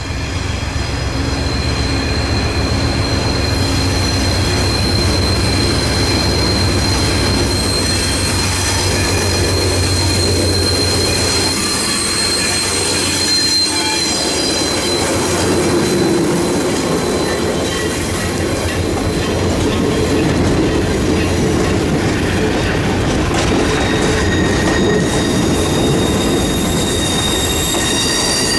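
Providence & Worcester diesel locomotive passing close by with a deep engine rumble, which gives way about twelve seconds in to the passenger cars rolling past. A high, steady wheel squeal runs over the passing train.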